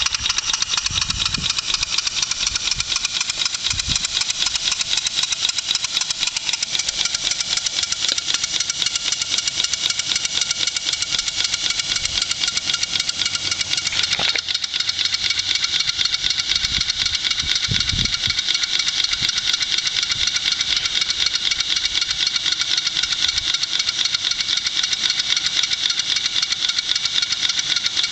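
Hand-made 1-inch-scale live steam traction engine running on compressed air: rapid, even exhaust beats with a hiss, steady throughout.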